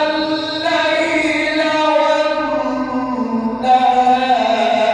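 A male reciter chanting the Quran in melodic tajweed style, holding long drawn-out notes that slide slowly in pitch. A new, higher phrase begins about three and a half seconds in.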